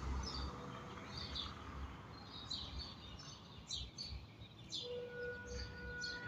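Small birds chirping in short repeated calls over a low background rumble, with a faint steady hum-like tone coming in near the end.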